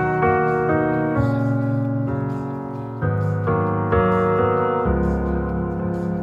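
Background music: piano playing slow, held chords that change every second or so.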